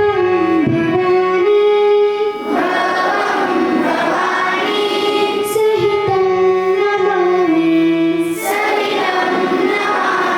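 A group of children singing a slow song together, with long held notes in phrases.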